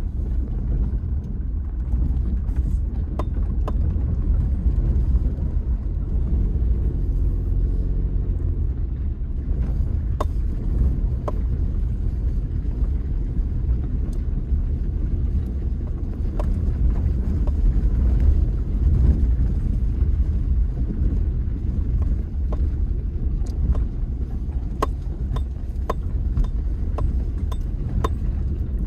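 Vehicle driving slowly over a rough, potholed dirt road: a steady low rumble of engine and tyres, with scattered sharp clicks and knocks.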